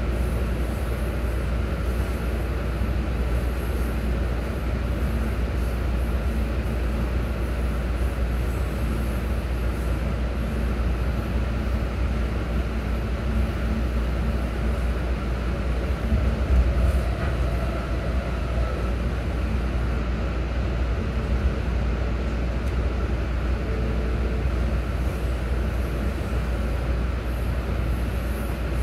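A MARC commuter train running at speed, heard from inside the passenger car: a steady low rumble of wheels on rail, with one brief louder jolt a little past halfway.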